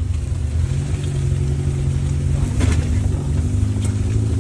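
Suzuki Katana's swapped-in Toyota 5K four-cylinder engine idling steadily.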